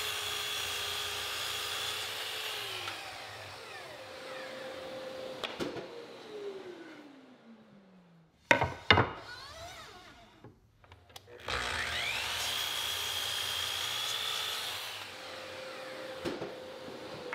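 Miter saw making two crosscuts in wooden boards. Each time the motor spins up to a steady whine, runs through the cut, then winds down with a falling pitch. Between the two cuts, a few sharp wooden knocks are heard as the cut pieces are handled; these knocks are the loudest sounds.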